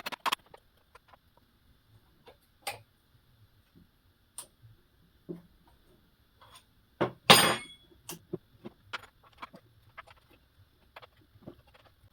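Scattered metal clicks and knocks from handling a chainsaw's chain, bar and adjusting tools while setting the chain tension, with a louder metallic clank that rings briefly about seven seconds in.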